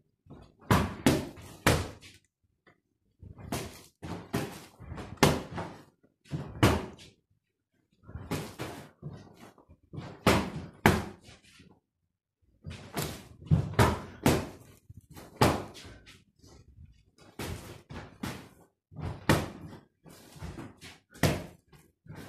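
Kicks and punches landing on a free-standing heavy punching bag: a long run of sharp thuds, often two or three in quick succession, with short pauses between.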